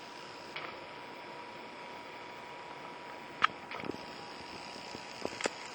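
Steady low hiss of indoor room noise with a few sharp clicks and soft taps: one loudest click about three and a half seconds in, and a small cluster of taps near the end.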